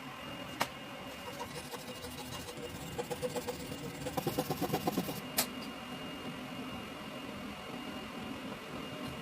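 A small electric motor running steadily with a constant high whine. About three seconds in comes a stretch of rapid rhythmic ticking, and there are two sharp clicks, one near the start and one about five seconds in.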